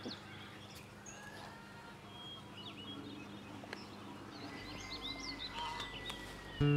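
Quiet outdoor ambience with small birds chirping now and then over a faint steady hum. Music with plucked guitar comes in near the end.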